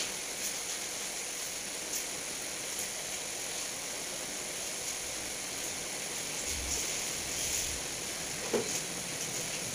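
Steady, even hiss of background noise, with a few faint clicks and one slightly louder click near the end.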